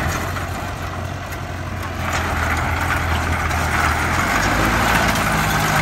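Turbocharged diesel engine of a customized tracked rice tractor running as the machine drives up, getting louder. A hiss builds about two seconds in, and a little past four seconds the engine note steps up in pitch.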